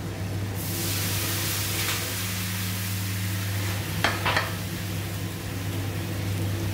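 Raw eggs dropped into hot oil in a frying pan of tomato-onion masala, sizzling steadily from about half a second in. A couple of light knocks come around four seconds in.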